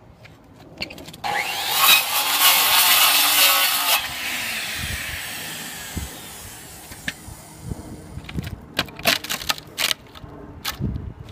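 Handheld circular saw cutting through shingles and plywood roof decking for about three seconds, then the blade spinning down with a falling whine. Near the end, a run of sharp cracks and knocks as the cut decking is pried loose.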